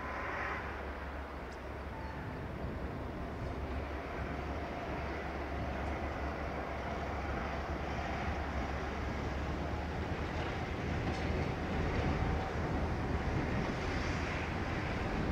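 Two Transnet Class 35-800 EMD diesel locomotives running light, approaching with a steady low engine drone that slowly grows louder.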